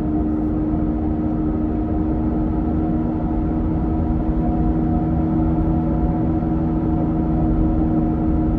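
Steady drone of a car's engine and road noise heard from inside the cabin while driving, an even hum with a low rumble beneath.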